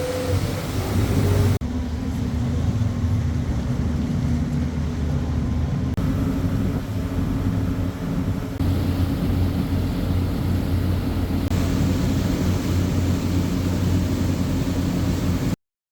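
Cruise boat's engines running with a steady low hum, with wind and water noise over it. The sound shifts abruptly a few times and cuts off just before the end.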